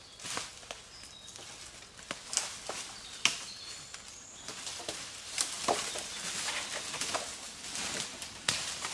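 Footsteps crunching through dry leaf litter, with dead branches cracking and clattering as they are gathered from a brush pile, and leaves rustling as a branch is pulled through the undergrowth. A series of sharp, irregular cracks, busier in the second half.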